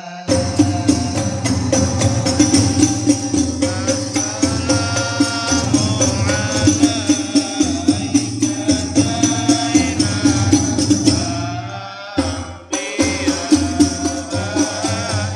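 Habsyi ensemble performing an Islamic devotional chant: voices singing a wavering, ornamented melody over a steady beat of frame drums with jingles. The music cuts out briefly about twelve seconds in, then resumes.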